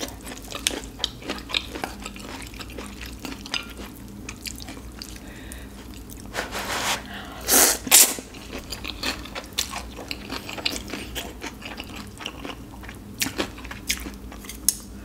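Close-up eating sounds of a person having spicy ramen noodles: chewing with many small wet mouth clicks, and about halfway through a long, loud slurp of noodles.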